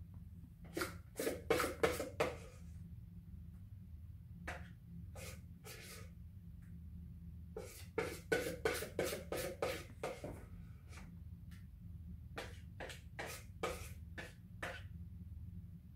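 A utensil beating a mixture in a hand-held bowl, knocking and scraping against the bowl's sides. It comes in several runs of quick strokes with short pauses between.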